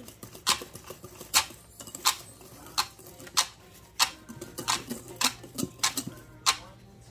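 Wire whisk beating cake batter in a stainless steel bowl, its wires clicking sharply against the metal side about three times every two seconds.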